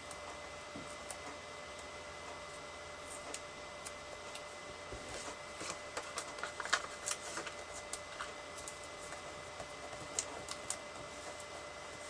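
Light rustling, tapping and clicking of paper and cardstock being handled and pressed together on a craft mat while foam dimensionals are attached, over a faint steady high whine.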